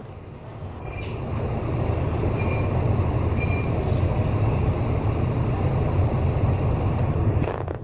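Double-decker bus engine idling while stopped, a steady low rumble heard from inside the upper deck that swells over the first second or two, with a few faint short beeps.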